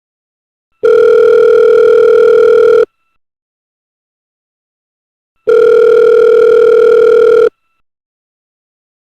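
Telephone ringback tone, the calling sound a caller hears while the other phone rings: a steady low beep lasting about two seconds, heard twice, with a silent gap of nearly three seconds between.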